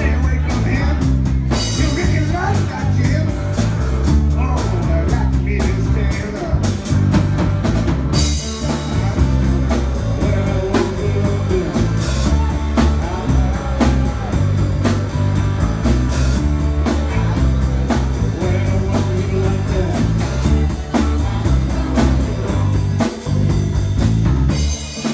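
Live band playing amplified blues-rock: electric guitar and drum kit, with a stepping low bass line and steady cymbal strokes.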